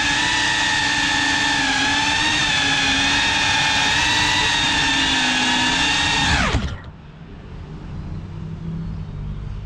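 Cinewhoop FPV drone's motors whining at a high, steady pitch, then falling sharply in pitch and cutting out about six and a half seconds in as the drone comes to rest.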